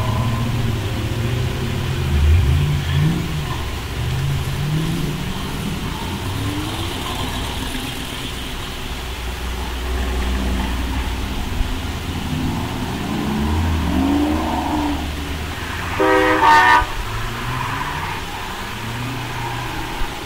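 Car engines running and revving, their pitch rising and falling as vehicles move about. About sixteen seconds in, a car horn gives a short toot, the loudest sound.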